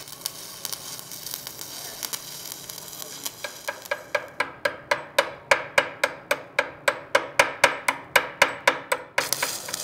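Stick (shielded metal arc) welding on copper-nickel plate, a steady crackling hiss from the covered electrode's arc. Then a pointed chipping hammer strikes the weld bead about four times a second, each blow ringing, chipping slag off the weld. Near the end the arc's hiss briefly starts again.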